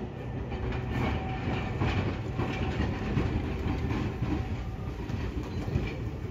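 Streetcar rolling along the street rails toward a tram stop: a steady low rumble with irregular clicks.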